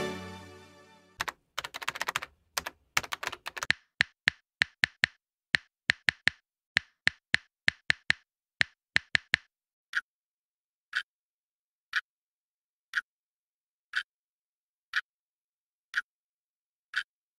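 A held musical tone fades out at the start. Then comes a keyboard-typing sound effect of rapid, irregular clicks for several seconds while on-screen text appears. It thins out and gives way to a countdown clock ticking once a second, about eight ticks.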